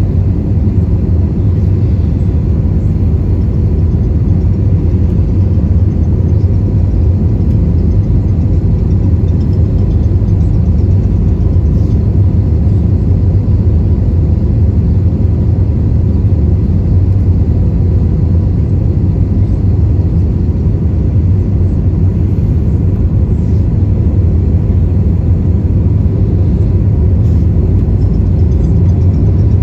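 Cabin noise inside an Airbus A320-232 descending to land: the steady, loud low rumble of airflow and its IAE V2500 engines, with a faint steady whine over it.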